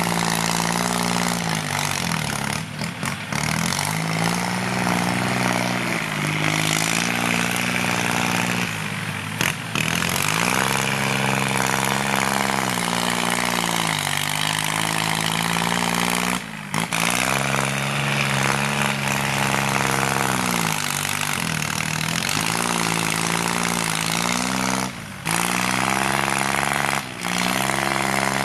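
Kubota L3608 tractor's diesel engine running hard through a loud aftermarket exhaust. Its pitch sags under load and climbs back several times as it pushes soil, with a few very short breaks.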